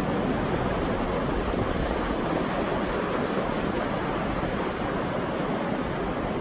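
Sea waves washing steadily onto the shore, a continuous rushing wash with no single break standing out, with wind rumbling in the background.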